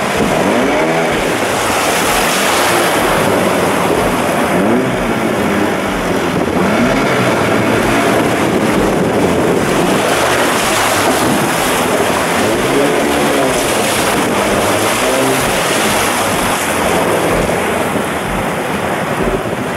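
Small boat's motor running through rough river water, its pitch rising and falling over and over, with rushing water and wind on the microphone.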